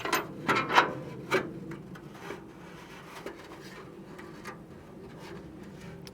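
An old Kennedy C5-16 steel toolbox being opened: a few sharp metal clicks and scrapes in the first second and a half, then quieter rubbing and rattling as it is handled.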